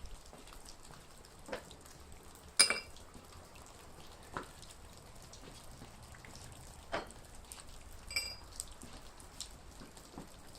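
Meltwater dripping off a barn roof into a puddle, scattered drops landing every second or few. Two short, ringing metallic clinks cut through, the louder about two and a half seconds in and another about eight seconds in.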